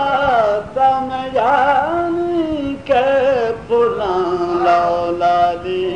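A man's voice chanting a devotional Urdu poem, drawing the line out into long, wavering held notes with short breaks between phrases.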